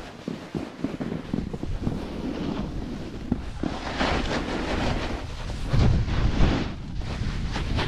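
Wind rushing over the microphone while a Capita Spring Break Slush Slasher snowboard scrapes its edge over packed snow through carved turns. The rush swells about four seconds in and is loudest around six seconds in.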